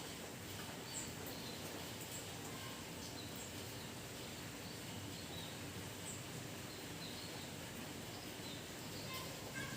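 Steady rain falling, with short high bird chirps scattered through it.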